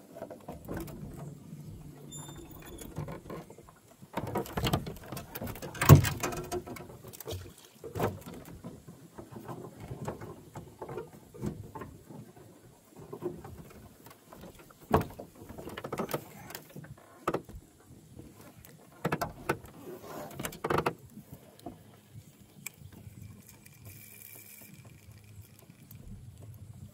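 Irregular knocks, bumps and clatter of handling in a small fishing boat, with the loudest knock about six seconds in and more scattered bumps later on.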